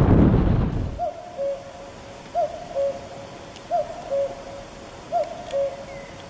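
Wind buffeting the microphone for about the first second, cutting off suddenly. Then a hooting two-note call, a higher note followed by a lower one, repeated four times about a second and a half apart.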